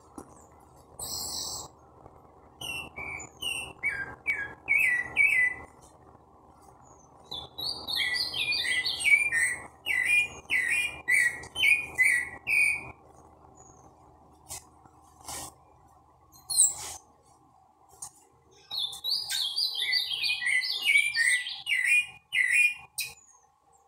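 Caged sabiá-gongá singing in three long phrases of rapid, clear, falling notes, with pauses between them. A few sharp clicks sound in the pause after the second phrase.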